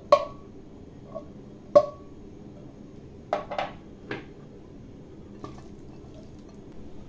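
Drained canned corn kernels tipped from a tin can into a blender jar of egg and milk mixture, dropping in with wet plops. The can gives a few sharp taps against the jar, two of them ringing briefly.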